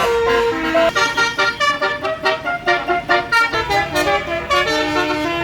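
Indonesian 'basuri' telolet bus horn playing a quick melody of short, stepped notes, several a second, with a longer held note near the end.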